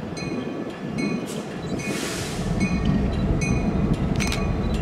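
Norfolk Southern freight train approaching: the diesel locomotive's low rumble grows louder from about two seconds in, while a bell dings steadily about twice a second.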